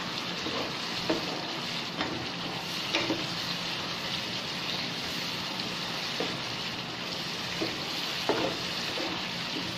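Thick chili and onion spice paste sizzling in oil in a nonstick frying pan, stirred with a spatula, with a soft scrape at each stroke. The paste is being fried until the oil separates from it.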